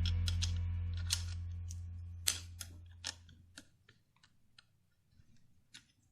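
A low steady hum fades away over the first three seconds or so, with about a dozen light clicks and ticks scattered through it. Then it is near silence.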